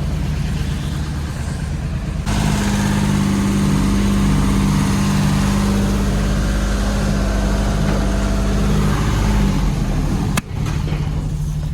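Cherry picker's engine running, stepping up to a higher, louder steady speed about two seconds in and holding there, then easing back down near the end.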